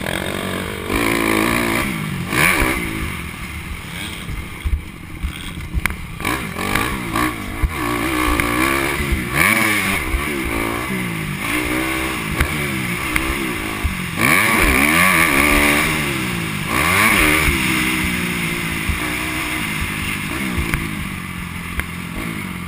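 Dirt bike engine, heard from the rider's own machine, revving up and falling back again and again as the rider accelerates, shifts and rolls off through the track's turns and jumps.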